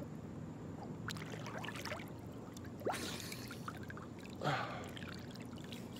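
Pool water lapping and splashing softly around a swimmer, with water running off him as he wipes it from his head. There is a short splash about three seconds in and another about four and a half seconds in.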